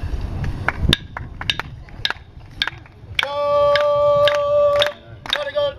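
A man singing a welcome song over a steady beat of sharp knocks, about two a second. About three seconds in he holds one long note, then sings shorter notes that bend in pitch.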